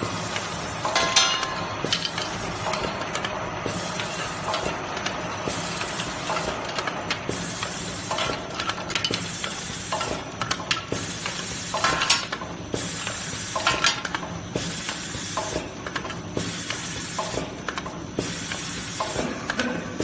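Automatic aluminium tube filling and sealing machine running: the rotary turret clatters through its cycle with repeated hisses and sharp clicks about once a second as tubes are indexed, filled and crimped.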